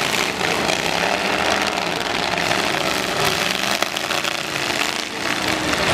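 Several demolition-derby pickup truck engines running at once, their pitch rising and falling as the drivers rev, with a few knocks among them.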